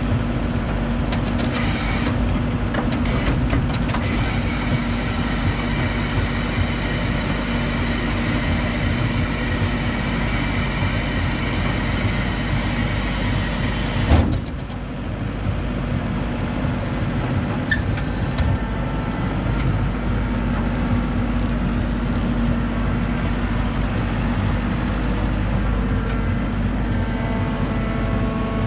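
A Gregoire 106 grape harvester's diesel engine runs steadily under load while the machine empties and lowers its grape hopper. About halfway through there is a sharp knock and the higher noise drops away. Near the end an engine's pitch rises as it revs up.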